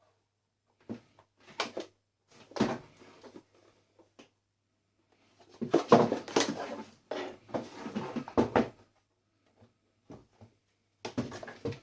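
Knocks, clunks and rattles of a coffee maker's parts being handled and pulled apart: a few single knocks, then a longer run of clattering about halfway through, and more starting near the end.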